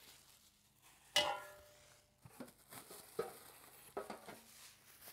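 A stainless steel broiler part clanks once about a second in, with a short metallic ring. Plastic packing bags then rustle and crinkle as parts are handled in the box.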